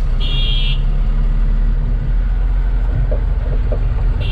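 Tata truck's diesel engine running steadily, heard from inside the cab while driving. A short high horn beep sounds near the start and again at the very end.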